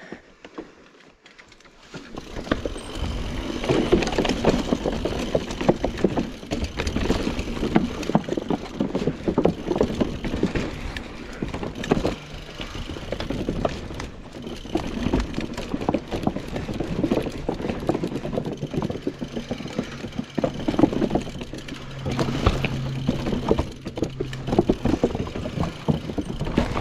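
Mountain bike clattering down a rough dirt trail: dense rattles and knocks from the bike, with tyre noise over the ground, starting about two seconds in.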